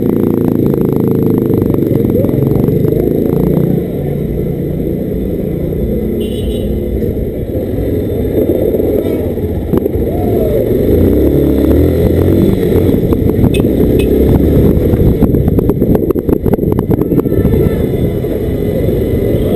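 250 cc motorcycle engine running at low speed as the bike rolls through town traffic, heard from a camera mounted on the bike, with rumbling noise on the microphone.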